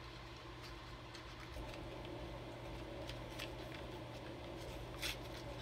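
Faint scattered clicks and crinkles of a small lip balm package being worked open by hand, the packaging hard to get into, over a steady low hum.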